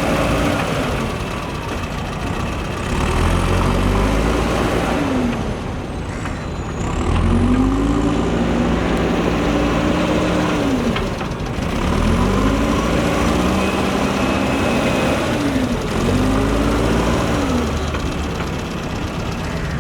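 JCB backhoe loader's diesel engine working under load, revving up and dropping back in repeated surges every few seconds as the machine digs and moves mud.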